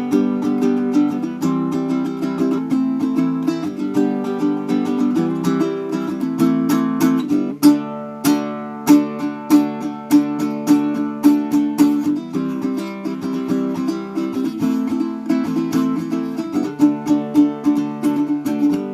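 Kohala Kine'o baritone ukulele being played: a steady run of strummed chords and plucked notes, with quicker repeated plucks in the middle stretch.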